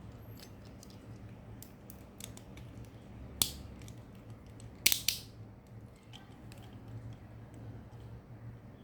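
Sharp clicks and light taps of Beyblade spinning-top parts being handled: one loud click about three and a half seconds in and two close together about five seconds in, with fainter ticks between.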